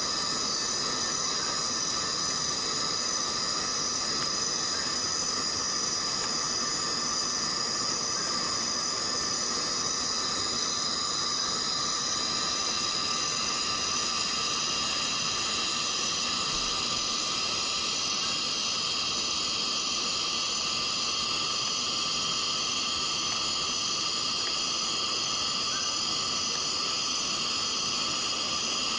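Steady rainfall in rainforest, with insects shrilling continuously at several steady pitches above the hiss of the rain; a further insect tone joins about twelve seconds in.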